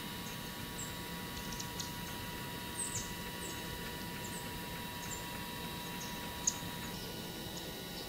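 Scattered short, very high chip notes from small songbirds, about a dozen of them, the sharpest about six and a half seconds in, over a faint steady hum.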